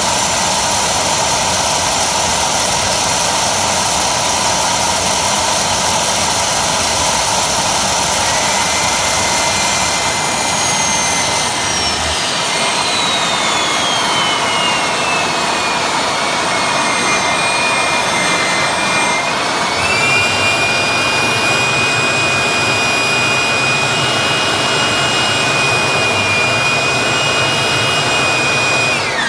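Turbocharger-based homemade turbojet running with a loud rush and a high turbine whine. About a third of the way in, the whine slides steadily down in pitch; about two-thirds in it steps back up a little and holds. Right at the end the sound falls away sharply.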